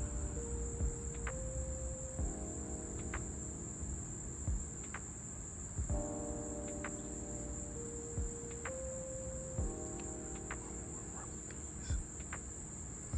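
Crickets chirping in a steady, high, unbroken chorus, with a dozen or so short clicks scattered through it. Underneath run soft sustained tones that shift every couple of seconds.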